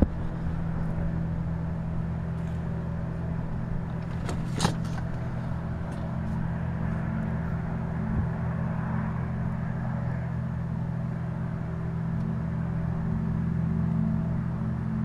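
A steady, low industrial hum made of several stacked low tones, which the uploader attributes to the Alcoa Massena West aluminum plant and calls a ringing that makes it hard to sleep. There is one brief click about four and a half seconds in.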